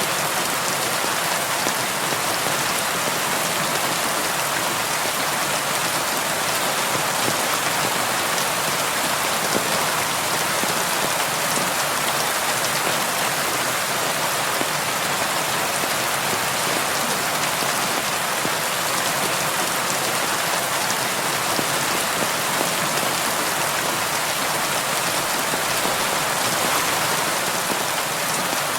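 Heavy rain falling steadily, a dense even hiss of rain on a surface with no let-up.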